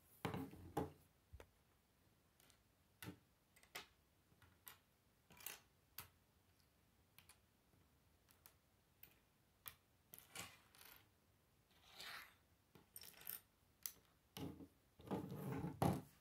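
Lego bricks being pulled apart and set down on a wooden table: scattered small plastic clicks and taps, with a longer clatter about half a second in and another just before the end.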